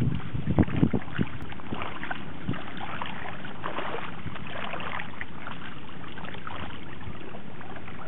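A Pembroke Welsh corgi's legs wading through shallow water, sloshing and splashing in small irregular strokes, over a steady rush of wind and water. The splashing is heavier in the first second.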